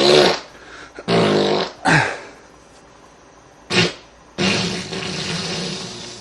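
A string of fart sound effects: a burst about a second in, a short one near two seconds, a brief one near four seconds, then a longer, hissier one running from about four and a half seconds on.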